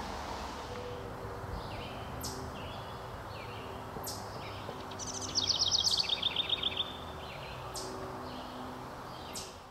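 Wild birds singing: scattered short high chirps, and a rapid trill of quick repeated notes falling in pitch about five seconds in, over a faint steady background hum.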